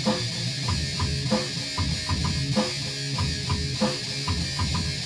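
Rock music from a homemade intro song: guitar and a steady beat, an instrumental stretch between sung lines.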